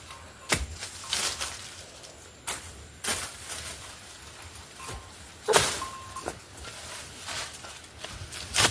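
Scattered knocks and clatters at irregular intervals, about half a dozen in all.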